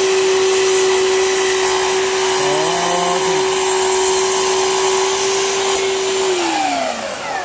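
Festool Kapex KS 120 sliding miter saw running at full speed while its blade is lowered through a wooden board, with a dust extractor drawing through its hose. About six seconds in the trigger is released and the motor's steady whine falls in pitch as the blade spins down.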